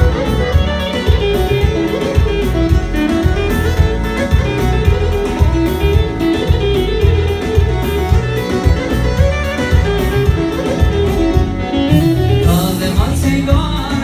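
A live wedding band playing an instrumental passage: a wavering lead melody over a dense, steady beat, brightening near the end.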